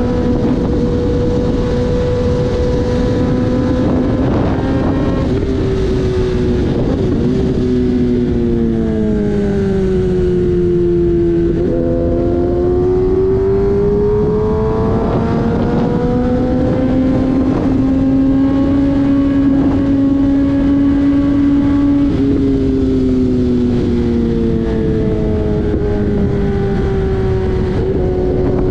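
Kawasaki ZX-10R's inline-four engine running under way, its pitch sinking and rising slowly with road speed, dipping about a third of the way in and again near the end, over a steady rush of wind and road noise.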